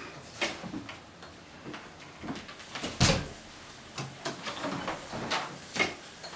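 Clatter and knocks of a folded Brompton bicycle being picked up and carried by hand, a dozen or so short knocks with a loud thump about three seconds in.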